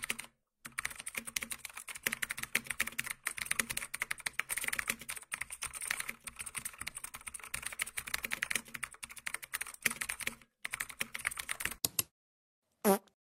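Rapid computer-keyboard typing: a dense run of key clicks with a couple of short pauses, stopping about twelve seconds in. A short, louder pitched blip follows near the end.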